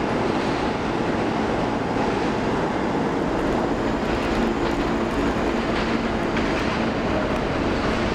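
R160 subway train approaching through the tunnel into an underground station: a steady, loud rumble of wheels on rail, with a low steady hum joining in about halfway through.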